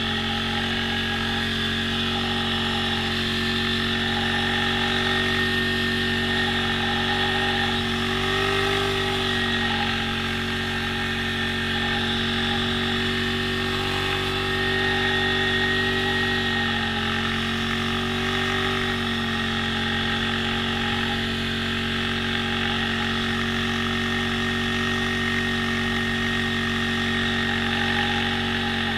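ATV engine running steadily under way, with small shifts in engine speed about a third of the way in and again past the middle.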